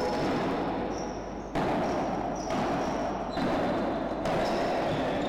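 Padel ball struck back and forth with rackets in a rally: four sharp hits about a second apart, each trailing off in the echo of the enclosed court.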